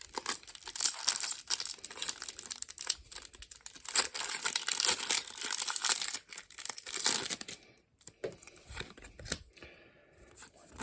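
A Pokémon booster pack's foil wrapper crinkling and tearing as it is opened by hand, busy and continuous for about seven seconds, then softer scattered clicks and rustles as the cards are handled.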